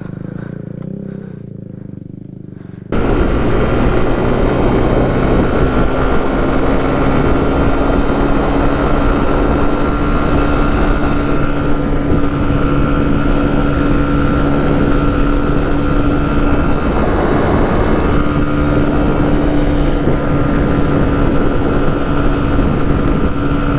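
Motorcycle engine running quietly for about three seconds, then suddenly much louder, holding a steady high speed for the rest of the time.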